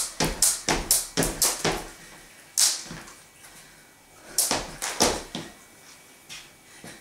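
Skipping rope slapping the floor about three times a second, then stopping after about two seconds as the jumping breaks off. One lone slap follows, then four more slaps about four and a half seconds in before it stops again.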